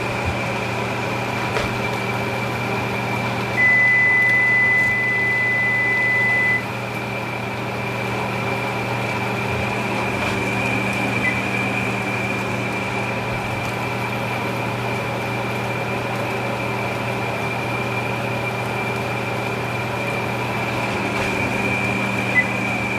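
Steady hum and hiss of a kitchen fan over chicken cooking in a pan. A high, steady electronic beep lasts about three seconds, starting about four seconds in.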